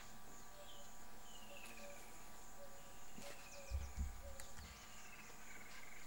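Outdoor bush ambience: a steady high insect trill with birds giving descending whistled calls several times. A few brief low thumps come about four seconds in.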